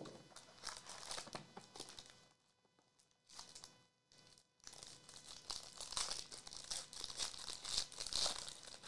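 Foil wrapper of a hockey card pack crinkling and tearing as it is handled and opened by hand. It comes in short bursts for the first couple of seconds, pauses, then crinkles steadily from about halfway through.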